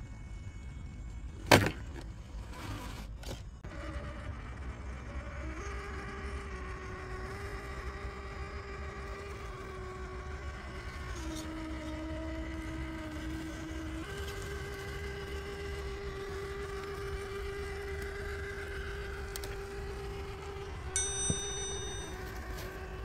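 Motor and gear whine of a Traxxas TRX4 RC crawler with a HobbyWing 2300KV sensored brushless motor, holding a steady pitch that dips lower for a few seconds in the middle. A sharp click comes about a second and a half in, and a metallic clink near the end.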